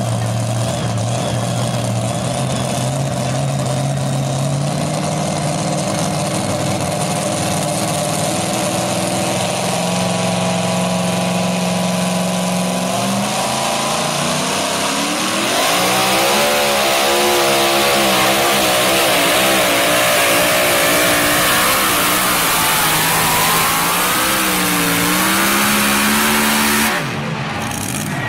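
Supercharged engine of a mini pulling tractor held at a steady rumble on the line, its revs stepping up a few times, then opened up to full throttle about halfway through for the pull. The pitch wavers up and down under load, then dips and rises again before the sound drops off abruptly near the end.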